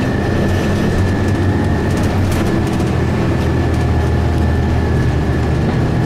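Cummins ISC inline-six diesel of a 2002 Blue Bird 40-foot transit bus running while the bus drives, heard from inside the passenger cabin: a loud, steady low drone with a thin, constant whine above it.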